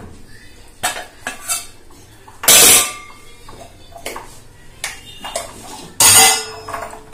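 Cookware clattering on a non-stick pan: a few light taps, then two loud clatters about three and a half seconds apart, the second leaving a brief ring.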